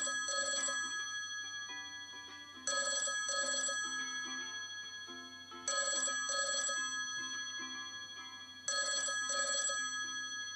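Telephone ringing in a double-ring pattern: four rings about three seconds apart, each a quick pair of trilling bursts.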